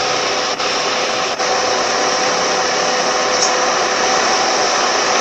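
Car air-conditioning blower fan running: a steady rush of air with a faint steady hum, dipping briefly twice in the first second and a half.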